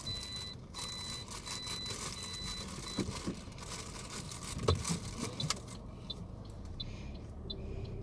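A car's electronic warning beeper sounding in short, evenly spaced beeps that stop about two and a half seconds in. A few knocks and handling thuds follow, and near the end there is light, regular ticking.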